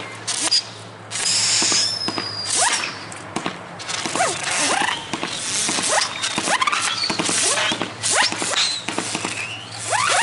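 Fireworks launching in quick succession: a string of short rising whistles as shells climb, mixed with sharp pops and crackle.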